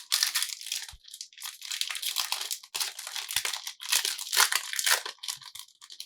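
Foil trading-card booster pack wrapper being torn open and crinkled by hand, in irregular crackling bursts with short pauses.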